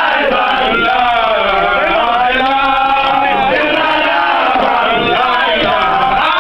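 A crowd of Baye Fall disciples chanting together, many male voices singing in unison at full voice without a pause, in the style of a Sufi zikr chant.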